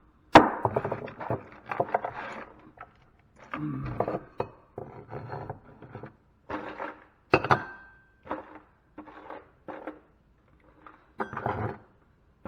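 Hand cutters snipping the brass end fittings off salvaged wire, with scrap metal handled alongside: a string of sharp snaps, clanks and scrapes with short gaps between, the loudest snap just after the start.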